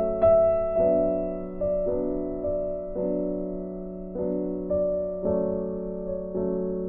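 Background piano music: slow, gentle chords, a new one struck about every half second to a second, each ringing and fading before the next.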